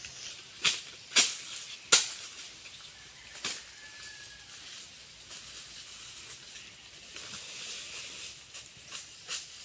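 Dry sticks snapping in four sharp cracks over the first three and a half seconds, then quieter rustling of footsteps through leafy undergrowth over a steady high hiss.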